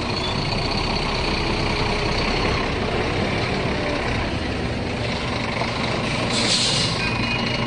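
Semi-trailer truck's diesel engine running steadily at low revs while it manoeuvres slowly, with a short hiss of air about six seconds in. Reversing beeps start near the end.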